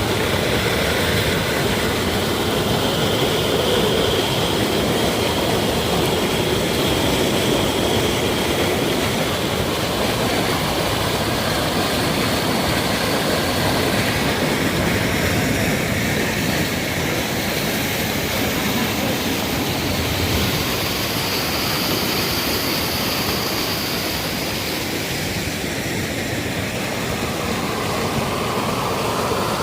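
Steady, loud rushing noise of heavy rain and running rainwater, with no breaks.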